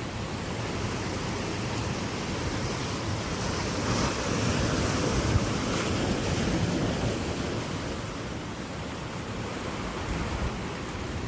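Ocean surf washing in, with wind buffeting the microphone; a wave swells up loudest a few seconds in and then falls back.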